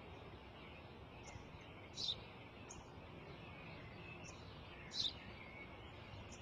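A sparrow chirping in short high notes, the two loudest about two and five seconds in with fainter chirps between, over a steady faint outdoor hiss.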